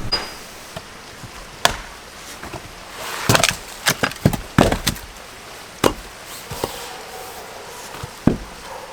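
Oak firewood being split with an axe: sharp wooden knocks and cracks. There is one strike early, a quick cluster of several about three to five seconds in, and a few more spaced out after, the last of them among the loudest.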